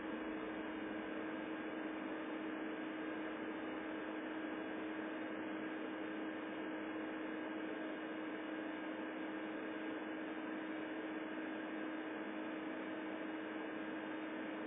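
Steady hiss with a constant low hum underneath, unchanging throughout, with no other events.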